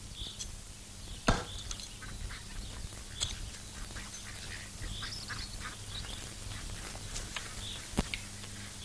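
A hard axe blow into a standing tree trunk about a second in, then a few fainter knocks, from an axe said to be blunt. Short bird calls come every couple of seconds over a steady low hum.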